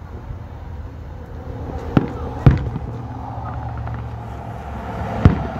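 Aerial firework shells bursting at a distance: three sharp bangs, two about half a second apart roughly two seconds in and a third near the end.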